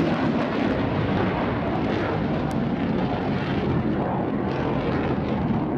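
Eurofighter Typhoon's twin Eurojet EJ200 jet engines running in afterburner, a steady rumbling jet noise as the fighter climbs away.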